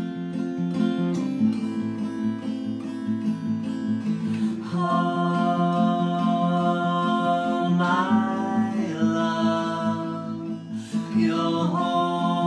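Gibson acoustic guitar strummed in a steady rhythm; from about five seconds in, a man and a woman sing over it in harmony with long held notes.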